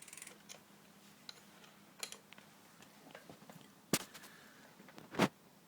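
Scattered small metal clicks and knocks of a hand tool working a BMX crank bolt loose, with two sharp, louder knocks in the second half.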